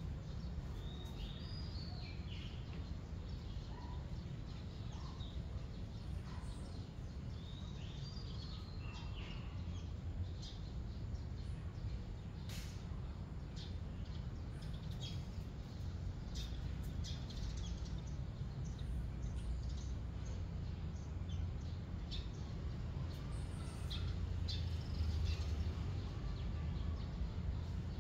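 Small birds chirping now and then in short high calls, clustered in the first ten seconds, over a steady low rumble with a few faint clicks.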